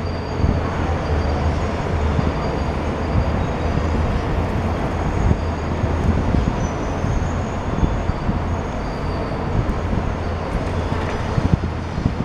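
Long-reach demolition excavator's diesel engine running steadily, a continuous low rumble, as its hydraulic arm moves the grapple. Faint high whines come and go above it.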